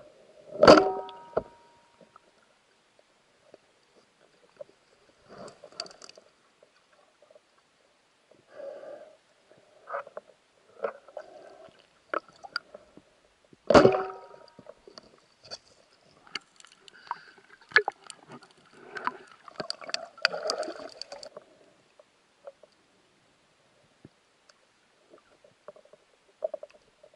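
Underwater sounds around a spearfisher and his speargun: two loud sharp knocks with a brief ringing, about a second in and about fourteen seconds in, with soft gurgles and bubbling between them.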